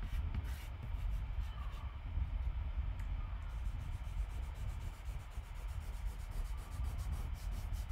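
A hand rubbing and blending charcoal on textured drawing paper, in short back-and-forth strokes that grow quicker and more even about halfway through, over a steady low hum.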